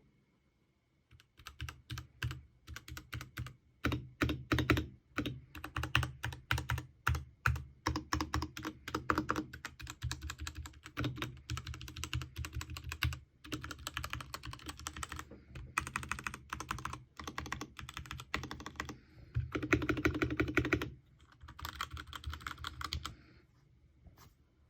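Typing test on a Royal Kludge RK61 60% mechanical keyboard, refitted with hot-swap sockets and new switches in place of its original loud blue switches. Separate keystrokes start about a second in and build into fast runs of typing with short pauses, stopping shortly before the end.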